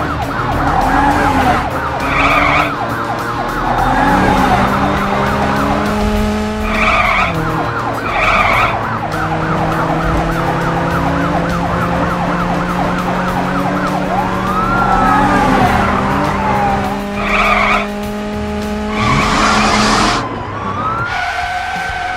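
Cartoon soundtrack of background music mixed with vehicle sound effects, including a few rising and falling siren-like pitch glides.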